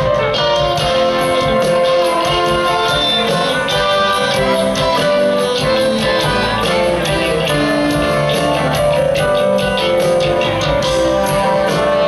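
Live rock band playing an instrumental passage: electric guitar and pedal steel guitar over a steady drum beat, with a string and horn section.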